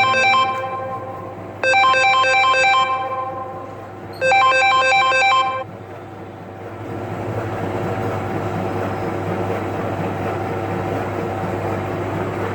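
A phone ringtone melody sounds in three short bursts about two and a half seconds apart. After the last burst it gives way to a steady machine hum with a low drone.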